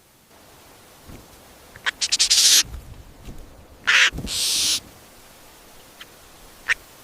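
Harsh, raspy animal squawks in two loud bursts about two seconds apart, the first led in by a quick rattle.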